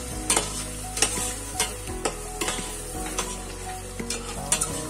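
A metal spoon stirring a thick tomato sauce in a stainless steel pot, clinking and scraping against the pot's sides in irregular clicks, with the hot sauce sizzling underneath.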